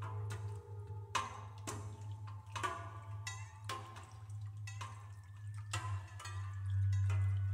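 Contemporary art music: sparse, irregular percussion strokes, each with a short ringing tail, some drip-like, over a steady low drone from the tape part. The drone grows louder near the end.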